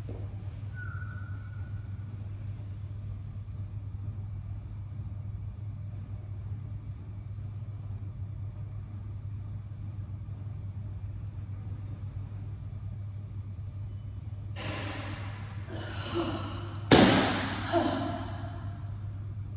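A steady low hum throughout. Near the end come a few heavy breaths and gasps from a person winded by dumbbell work, the sharpest and loudest about two and a half seconds before the end.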